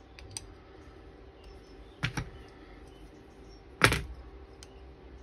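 Freshly reassembled pair of scissors being worked and closed: two sharp metal clicks, about two and four seconds in, the second louder, with a few lighter clicks besides.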